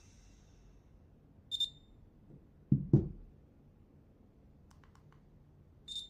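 Brushless starter motor of a Swiwin model jet turbine whining as it spins down after a starter test, falling in pitch and fading out within the first second. Then a short high beep, two knocks about three seconds in as the turbine is set down on the table, a few faint clicks, and a second beep near the end.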